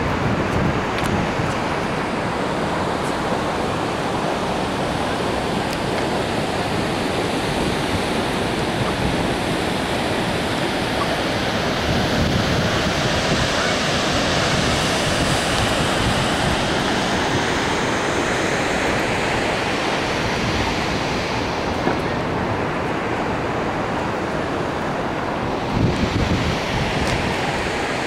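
Steady rush of Harajiri Falls, a wide curtain waterfall, with wind buffeting the microphone in low rumbling gusts, strongest about 26 seconds in.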